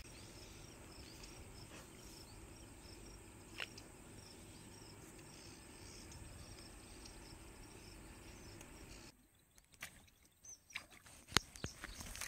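Insects chirping faintly in a steady, repeated pattern over low background noise. About nine seconds in, the sound drops off abruptly, and a few sharp clicks follow near the end.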